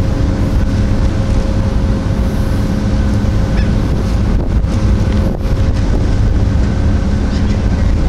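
Wind buffeting the microphone on an open ferry deck over the steady drone of the ferry's engines, with a constant hum.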